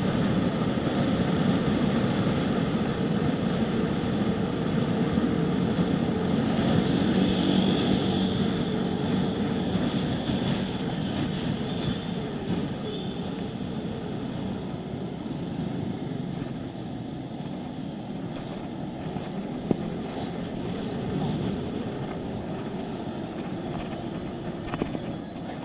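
Wind rushing over the microphone and road noise from a moving bicycle, a steady rumble that gradually eases about halfway through.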